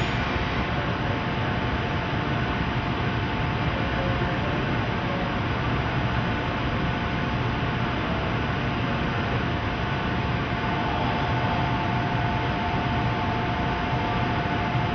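Steady hum and rushing noise of a JNR Class EF65 electric locomotive standing still, with faint steady tones and no sudden sounds.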